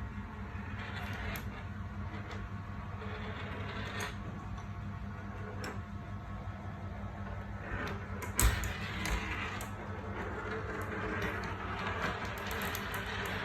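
Marbles rolling along a toy marble run track, a steady rolling rattle broken by scattered sharp clicks as they drop and strike the track pieces, with a louder knock a little past the middle.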